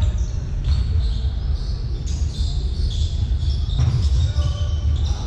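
Basketball bouncing on a hardwood court during play, with several irregular thuds over a steady low rumble.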